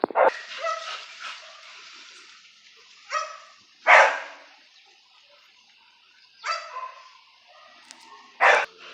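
A dog barking several times, in short separate barks a second or more apart.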